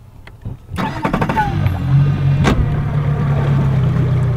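Boat motor running as the boat is turned: it starts about a second in and settles into a steady low hum. A sharp knock is heard about halfway through.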